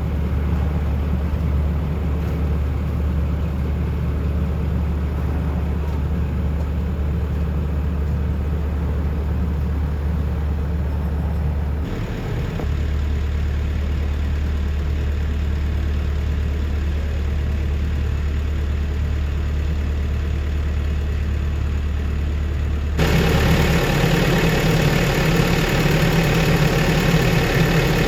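Komatsu PC128US-8 excavator's diesel engine running with a steady low drone. It changes abruptly about twelve seconds in and again near the end, where it becomes louder and fuller.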